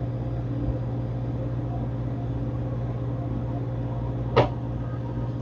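Steady low mechanical hum, like a motor running, with one short sharp click about four and a half seconds in.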